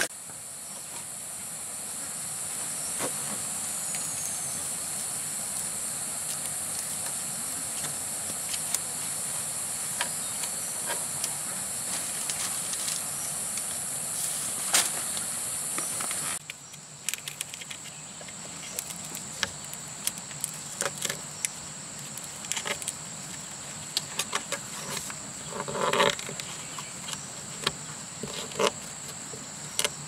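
Insects drone steadily at a high pitch, dropping away abruptly just past halfway. Scattered short knocks and taps run throughout, with a louder one a little past three-quarters of the way in.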